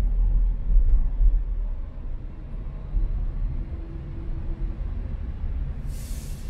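Car being driven: a steady low rumble of engine and road noise, heavier for the first couple of seconds. A short hiss comes near the end.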